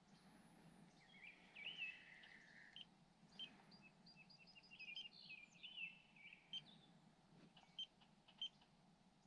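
Faint songbirds singing: a warbling phrase, then a longer phrase with a quick run of high notes, followed by a few sharp chips.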